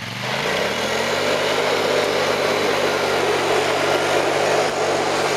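A motor or engine spinning up, its pitch rising over about the first second, then running steadily with a loud rushing noise.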